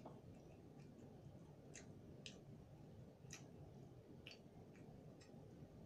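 Faint, irregular small clicks, roughly one a second, of a person eating with the hands: fingers gathering rice and sisig on a ceramic plate and the mouth chewing, over low room hum.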